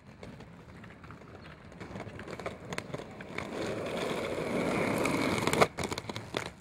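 Inline skate wheels rolling over pavement, the rolling noise swelling over a few seconds and then stopping abruptly with a sharp click, followed by a few knocks near the end.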